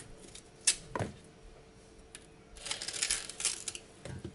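Kitchen knife cutting and peeling the skin off a green plantain: a sharp click and a dull knock about a second in, then a second or so of scraping and rustling, and another dull knock near the end.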